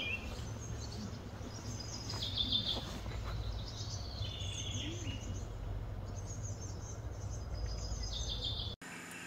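Birds chirping in short repeated calls over a steady low background rumble. The sound cuts off abruptly near the end.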